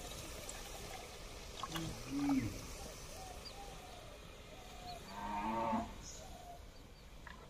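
Farm animal calls: a short low call about two seconds in and a louder, longer call about five seconds in, with faint short calls between.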